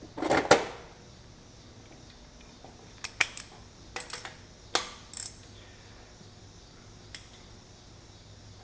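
Metal tools and engine parts clattering and clinking: a loud clatter right at the start, then a handful of short, sharp metallic clinks a few seconds in and one faint one later.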